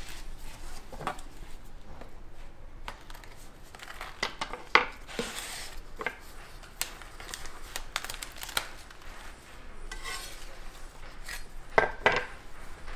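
Food handling on a wooden board: scattered taps, knocks and light clatter of a utensil and a crisp crepe being folded and handled, with the sharpest knocks about five seconds in and again near the end.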